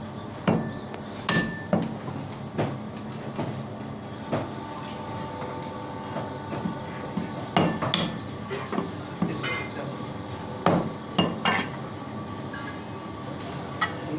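Heavy meat cleaver chopping goat meat on a round wooden chopping block: a dozen or so sharp, irregular chops, some in quick pairs, over a steady hum.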